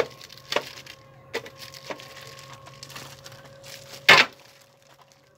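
Hard plastic housewares clacking as they are handled: a few sharp knocks, the loudest about four seconds in, over a steady electrical hum.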